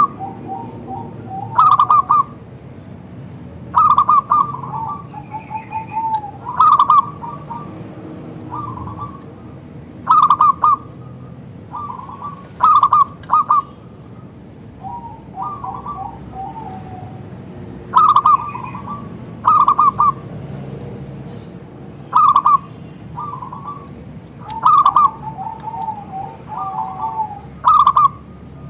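Zebra dove (perkutut) cooing over and over: each phrase opens with sharp, loud notes followed by a lower rolling trill, repeated every one to three seconds.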